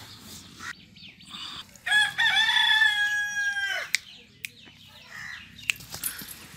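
A rooster crowing once: a single call of about two seconds that holds steady and then drops off at the end.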